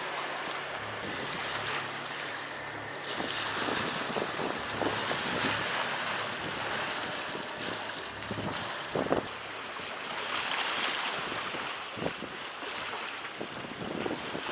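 Wind buffeting the microphone over the wash of open-sea waves against a sailing yacht under way.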